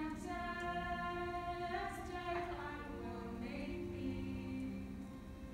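Unaccompanied female voices singing a slow song in long, held notes.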